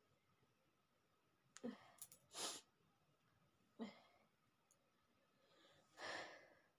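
A woman's short, faint breathy nasal sounds, four of them spread over several seconds: sharp sniffs and quick huffs of breath, two with a small catch of voice, as she tries and fails to bring on a sneeze.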